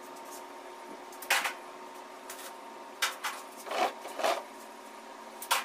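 Pieces of thin steel tubing clinking and knocking against each other and the concrete floor as they are fitted into a gate frame by hand: about five separate sharp knocks, the loudest about a second in, over a faint steady hum.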